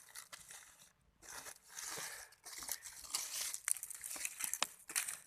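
Dry debris rustling and crunching in irregular scrapes with short, sharp snaps, as a burrow hole is poked and scraped into.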